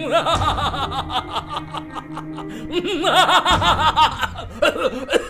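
A man laughing in quick, repeated rising-and-falling 'ha-ha' bursts over background music, in two main spells with a short pause in the middle.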